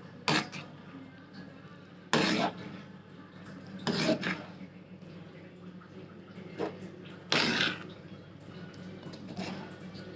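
A spoon or ladle stirring thick bisibele bath in a cooking pot, scraping and knocking against the pot in about six separate strokes.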